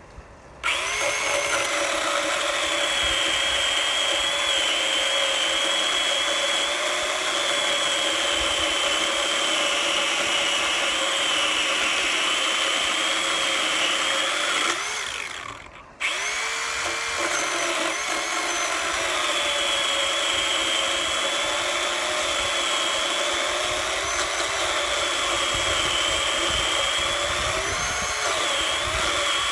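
Battery-powered 18 V Ryobi One+ pole saw (OPP1820) running, its chain cutting through a 4x4 timber post: a steady high whine whose pitch sags and recovers under load. The motor stops for about a second midway, then starts again and carries on cutting.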